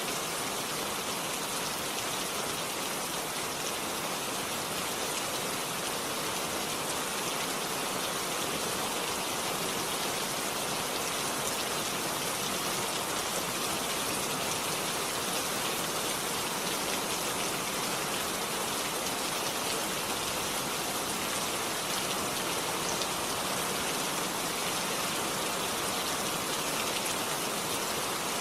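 Steady rainfall, a continuous even hiss of rain with fine patter of drops on a surface.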